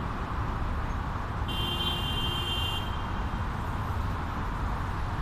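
Steady road-traffic rumble, with one high electronic beep lasting about a second and a half, starting about a second and a half in.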